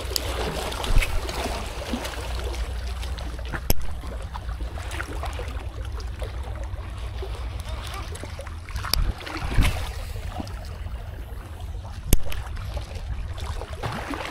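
Small sea waves washing against shoreline rocks, with wind rumbling on the microphone. Four sharp clicks stand out over it, a few seconds apart, as the baitcasting rod and reel are handled.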